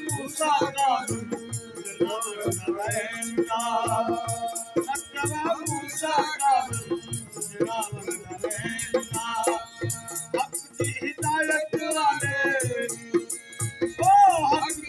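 Siraiki devotional qaseeda sung by a male voice, accompanied by harmonium drones and chords, dholak drum and the plucked single string of an ektara, with hand percussion rattling in a fast, steady pattern.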